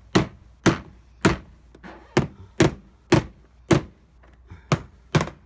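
About nine sharp knocks, roughly two a second with two short pauses, as a part of a car's door handle assembly is tapped into place.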